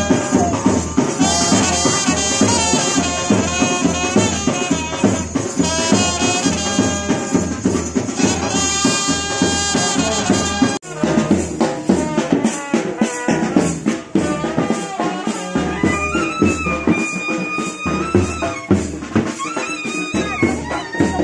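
Small street brass band playing: a trumpet and a larger brass horn carry the melody over a steady beat of hand cymbals and drum. The music breaks off for a moment about eleven seconds in, then carries on.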